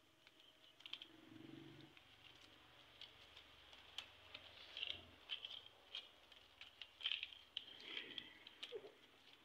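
Coconut-frond leaflets rustling and crackling faintly as they are folded and plaited into a mat, with scattered irregular clicks.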